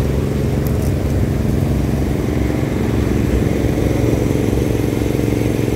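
Steady low machine hum, like a running engine, that keeps an even pitch and level without changing.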